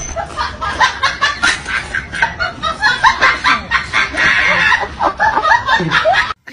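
Rapid, high-pitched snickering laughter, a quick string of short bursts that breaks off suddenly near the end.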